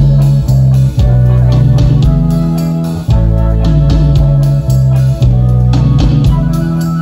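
Band music: the instrumental intro of a song, with guitar, a prominent bass guitar and a drum kit.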